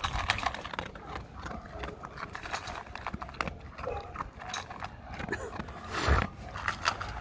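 A dog eating dry kibble, crunching and chewing in quick, irregular bites.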